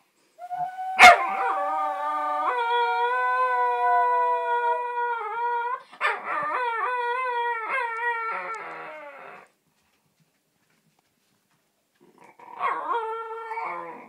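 Cocker spaniel puppy howling, set off by an owl sound: a long held howl that wavers and breaks into shorter, choppier cries. After a pause of a few seconds comes one more short howl near the end. A sharp click comes about a second in.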